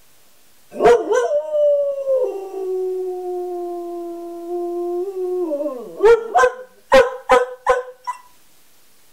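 Greyhound rooing: one long howl starting about a second in, stepping down in pitch partway and holding, then sliding lower. It breaks into about six short, sharp yips near the end.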